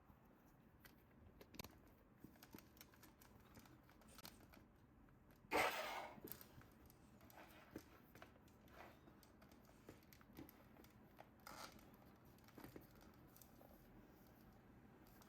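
Quiet handling of toy packaging: small clicks and rustles, with one louder tearing or cutting noise lasting about half a second, some five and a half seconds in.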